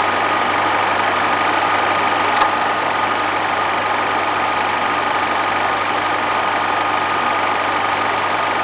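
Steady mechanical whirring with hiss and a low hum, and one sharp click about two and a half seconds in.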